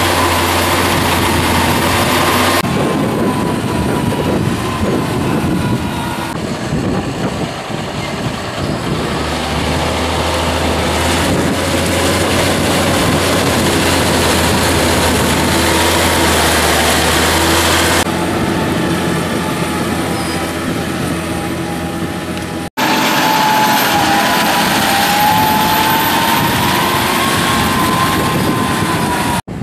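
John Deere 6140R tractor's six-cylinder diesel engine working hard under load as it pulls a five-furrow plough through heavy wet soil, with a steady whine over the engine note. The sound changes abruptly at several cuts between shots.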